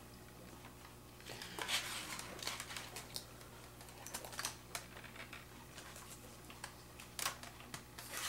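Light plastic clicks and scraping from working a laptop's keyboard ribbon-cable connector and handling the loose keyboard, with a scratchy stretch a second or two in and scattered clicks after, over a faint steady low hum.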